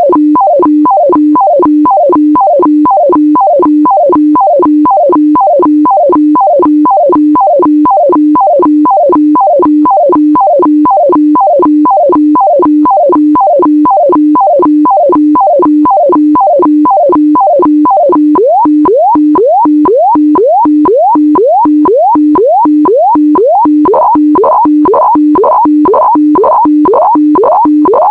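HF radiofax transmission heard through a radio receiver: a rhythmic electronic warble, a steady low tone pulsing with a short pitch sweep about twice a second. The sweeps fall in pitch at first, then about two-thirds of the way through they turn to rising sweeps.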